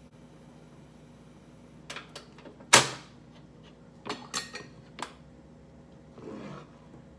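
Kitchen handling clatter: a few clicks, then one sharp knock, then a run of clinks as a metal ladle is lifted out of a glass mixing bowl. A short scrape follows as it goes into the pot.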